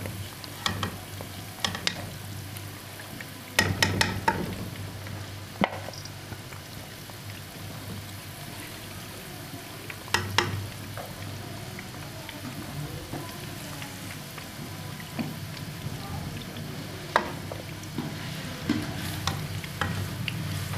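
Chicken pakora frying in hot ghee in a wok with a steady sizzle, broken by sharp metal clinks as a slotted steel spoon scoops the fried pieces out against the pan.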